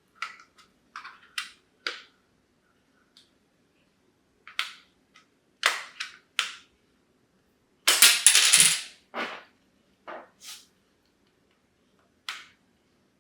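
Pry tools working at the plastic casing of a Feit smart doorbell camera: scattered sharp clicks and scrapes of the tool tips on plastic, with a louder, longer scrape lasting about a second about eight seconds in.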